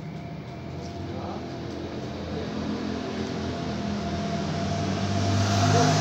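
Road traffic: the engine hum and tyre noise of passing vehicles, growing steadily louder toward the end as a truck approaches.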